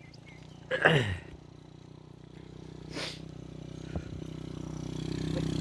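A motor vehicle's engine runs steadily and grows louder toward the end. About a second in there is a short call that falls in pitch, and a brief hiss comes near the middle.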